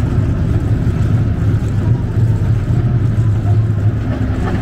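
Casey Jr. Circus Train running along its track: a steady low rumble.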